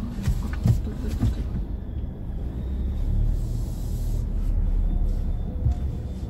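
Low, steady rumble of a Kia car driving slowly, heard from inside the cabin, with a few short clicks in the first second or so.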